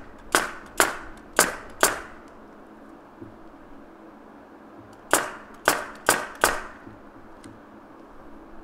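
Pneumatic brad nailer firing, tacking thin wooden shims down onto the wall plate: four quick shots, a pause of about three seconds, then four more.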